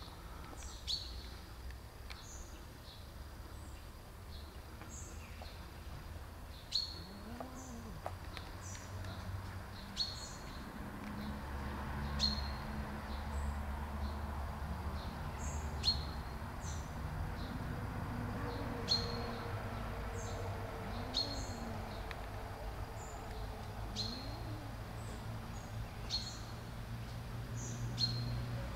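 A small bird chirping over and over, a short sharp falling note every two seconds or so, over a low steady background rumble.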